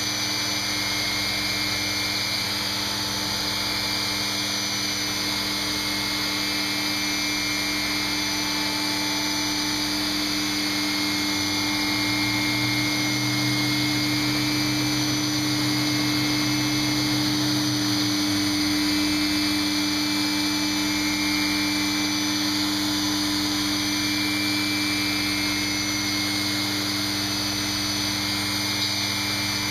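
Granite-cutting CNC machine running with a steady mechanical hum and a high wavering whine over a hiss of noise. A lower hum joins for about six seconds midway through, while the spindle head travels along the gantry.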